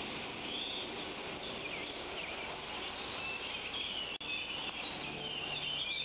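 Birds chirping over a steady outdoor hiss, many short calls in quick succession. The sound drops out briefly about four seconds in, and a faint low hum comes in near the end.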